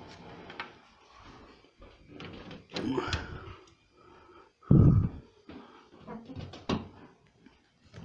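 Hard plastic knocks and clicks as a washing machine's lower front panel is handled and its spring clips and poppers are worked loose, with one heavy thump about five seconds in.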